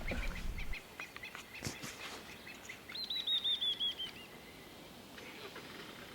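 A bird calling: a quick run of about eight short, high notes in just over a second, the run slipping slightly lower in pitch towards its end, about three seconds in. A low rumble, likely the safari vehicle, cuts off under a second in.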